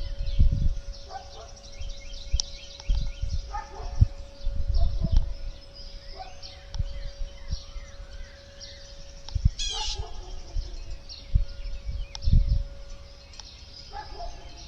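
Tornado siren sounding in the distance, holding one steady tone that begins to drop in pitch at the end as it winds down. Birds chirp throughout, and low rumbling thumps on the microphone are the loudest sound.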